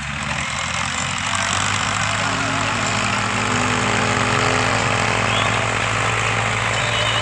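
Dabang tractor's diesel engine running steadily under load as it pulls a bed-forming implement through tilled soil, growing slowly louder as it comes closer.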